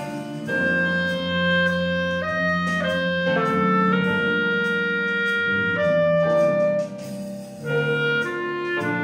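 Clarinet playing a melody of long held notes in a jazz arrangement of a Christmas tune, over a lower accompaniment. The melody breaks off briefly about seven seconds in, then resumes.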